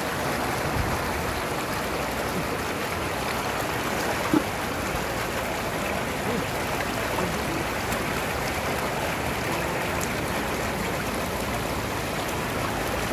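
Shallow floodwater rushing and babbling over a muddy road close by, a steady running-water sound, with one brief sharp knock about four seconds in.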